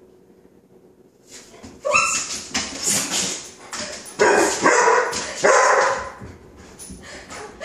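Chocolate Labrador puppy barking, a run of loud, sharp barks starting about two seconds in, at a can of non-stick cooking spray that frightens him.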